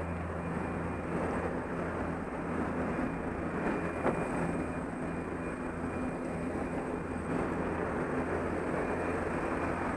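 Steady drone of a skydiving jump plane's propeller engines inside the cabin, mixed with rushing wind through the open jump door. A brief knock about four seconds in.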